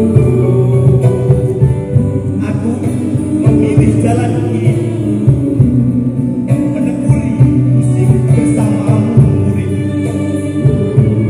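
Live band music with singing and guitars, amplified through stage speakers in a large hall.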